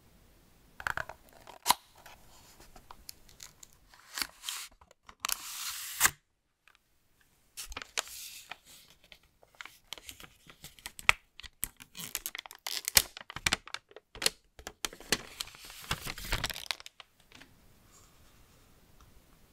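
Paper packaging of a Google Pixel phone case being torn open, slid apart and unwrapped by hand: irregular tearing, rustling and crinkling with sharp clicks, with a short pause part way through and stopping shortly before the end.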